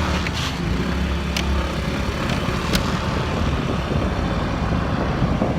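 Motor vehicle engine and road noise while riding: a steady low rumble with a couple of brief sharp clicks.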